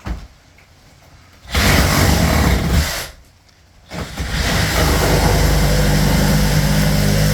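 Handheld electric power saw with a small cutting blade cutting, in two runs: a short one about a second and a half in, then a longer, steady one from about four seconds in.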